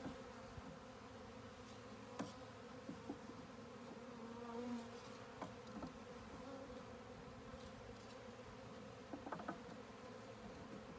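Honeybee swarm buzzing, a steady low hum of many bees, with a few light knocks about two seconds in and again near the end.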